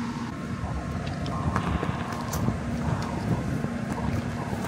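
Wind rumbling on the microphone, with a faint steady hum underneath.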